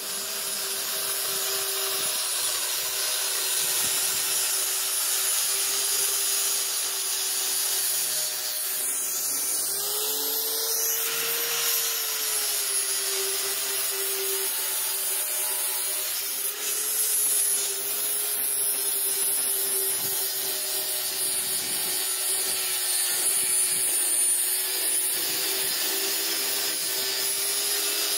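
A power tool running steadily: a continuous hiss with a motor hum under it. The hum rises briefly in pitch about ten seconds in, then settles back.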